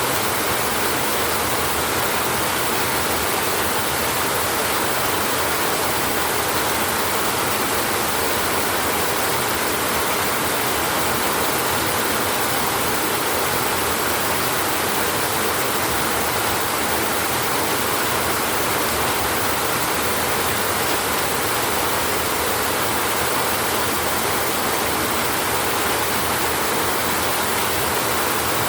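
Rain falling steadily on a tin roof, an even hiss with no rumbles of thunder.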